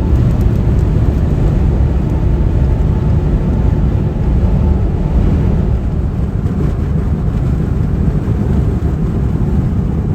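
Steady low rumble of a van driving on the highway: engine, tyre and wind noise without any change.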